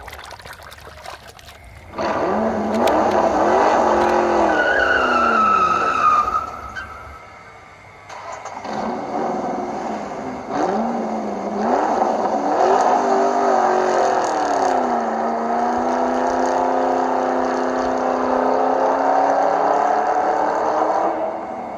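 Car engine sound effect revving up and down in pitch, with a brief falling tire squeal about five seconds in; it drops away for a moment around eight seconds, comes back, and settles into a steady run in the second half.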